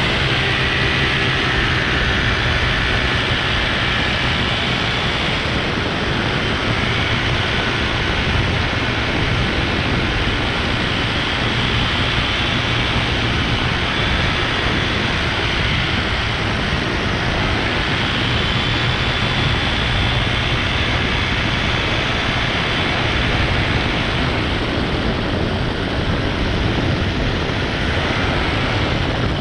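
Steady propeller and engine noise of a paramotor in flight and the camera drone flying close alongside it, with a faint wavering high whine over the even rushing noise.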